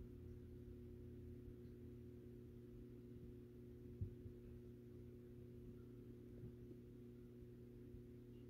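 Near silence: a low steady hum, with one faint tap about four seconds in.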